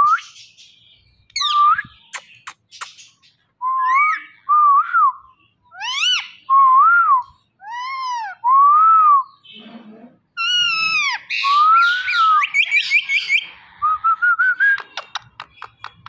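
Indian ringneck parakeet whistling a string of looping notes that rise and fall, mixed with higher chirps and squawky calls. A few sharp clicks come about two to three seconds in, and a quick run of short chirps near the end.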